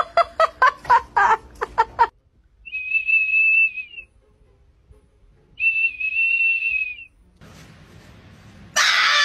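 A golden retriever blowing a small plastic whistle held in its mouth: two steady high whistle notes, each about a second and a half long, a couple of seconds apart. Before them there is a quick run of about nine short sharp sounds, and near the end a loud held note with a rich, buzzy tone cuts in.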